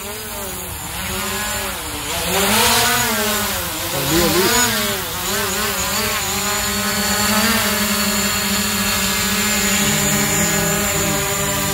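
DJI Mavic Pro quadcopter's propellers whining as it hovers low, weighed down by a GoPro Hero8 mounted on top. The pitch wavers up and down as the motors fight to hold it, then settles steadier in the second half.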